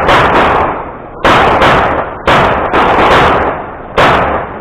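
Rapid gunfire from a practical-shooting course of fire: about six sharp shots, several of them in quick pairs. Each shot rings out and decays before the next.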